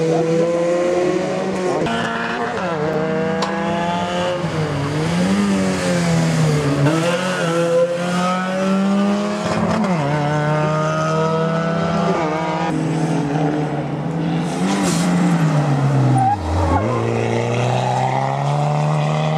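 Rally car engine at full throttle, pitch climbing through the revs and falling back at each gear change, with a sharp drop near the end as it comes off the throttle.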